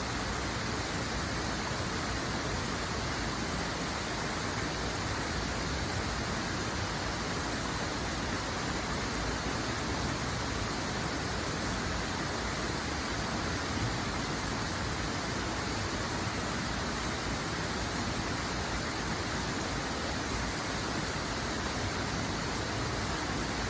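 Water rushing steadily, an even hiss with no separate splashes or changes.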